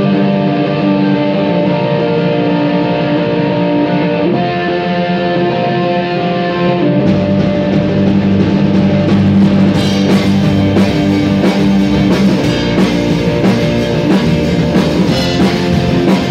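Rock band playing live in a rehearsal room: electric guitar chords ring alone at first, then bass and a Pearl drum kit come in about seven seconds in, with cymbal and drum hits loudest from about ten seconds on.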